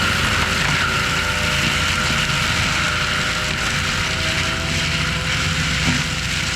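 Forestry mulcher on an ASV RT-120F compact track loader running steadily: a diesel drone with a steady high whine over it, and a single short knock about six seconds in.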